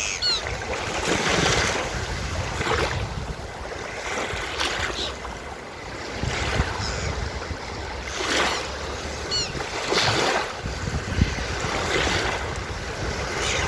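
Ocean surf washing onto a beach, the noise swelling and falling about every two seconds. Seagulls give short, high cries near the start and again around two-thirds of the way through.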